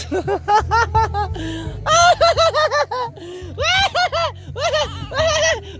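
Laughter: a person laughing in several runs of quick, high-pitched 'ha-ha' bursts, with short breaths between the runs.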